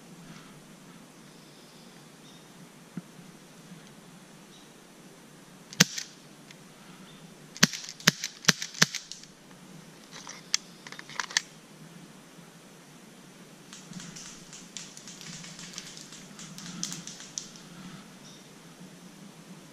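Airsoft guns firing: about seven sharp snapping shots, a single one about six seconds in, four in quick succession around eight to nine seconds, and two more near eleven seconds. Lighter clicking and rustling follows a few seconds later.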